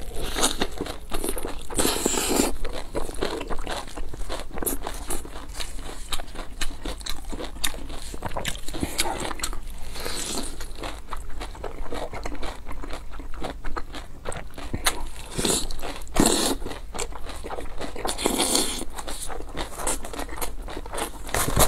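A person eating into a close clip-on microphone: crunchy bites into a fried dumpling and wet chewing, with constant small crackles and a few louder crunches about 2, 10, 16 and 18 seconds in.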